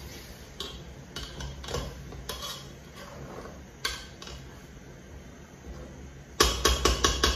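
A spatula stirring egusi soup in a non-stick pot, knocking against the pot's side now and then. Near the end it strikes the pot in a quick run of louder knocks.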